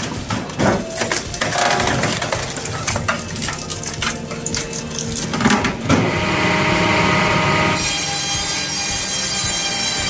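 Wood-processing machinery handling logs: irregular knocking and clattering of wood. About six seconds in, this cuts abruptly to a steady, even machine whine with several pitches, such as a large saw running.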